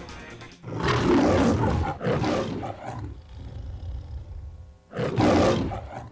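A lion roaring, in the style of the MGM film-logo roar. One roar begins about a second in, a second follows straight after it, and a third comes near the end.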